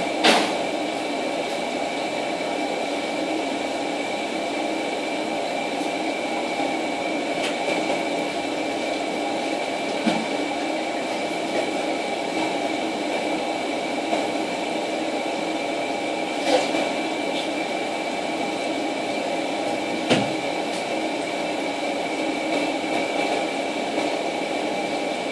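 Steady machine hum with a thin high whine, broken by a few short knocks, the sharpest just after the start.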